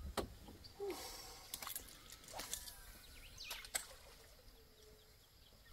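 Quiet marsh ambience with faint bird calls and a handful of sharp, separate clicks.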